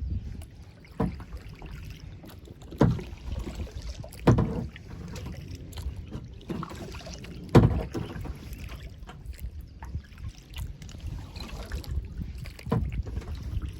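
Kayak being paddled, with about five sharp knocks over a low steady rumble.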